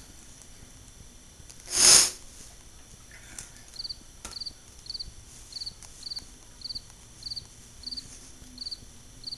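A cricket chirping steadily, short high chirps about one every two-thirds of a second. About two seconds in there is a single short, loud whoosh.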